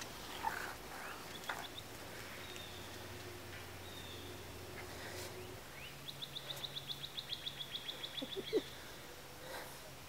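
Outdoor ambience with birds calling: a few short high chirps, then, just past the middle, a rapid trill of high chirps at about eight a second lasting two to three seconds.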